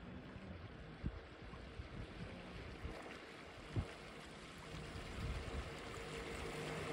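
Small unmanned catamaran survey boat running toward the listener, its motors a faint steady hum that grows louder over the last couple of seconds, over a haze of water and wind noise. A few soft knocks sound, the loudest about four seconds in.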